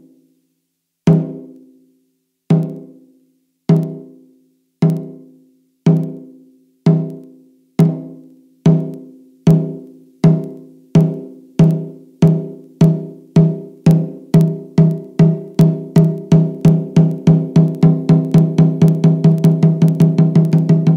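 A single deep drum struck over and over, the strokes speeding up steadily from about one every second and a half to about four a second, each stroke ringing out before the next.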